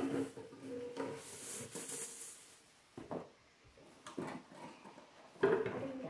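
Plastic wrapping rustling and crinkling as a ukulele is pulled out of it and handled, with a few short handling knocks and a brief louder sound about five and a half seconds in.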